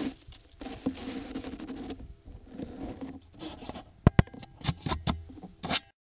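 Crunching steps in snow and rustling close to the microphone, with several sharp clicks and knocks in the second half.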